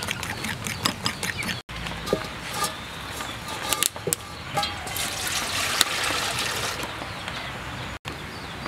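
A spoon stirring wet batter in a ceramic bowl with quick, regular strokes. After that, water is poured from a plastic bowl into a large aluminium pot: a trickling splash that grows louder in the second half.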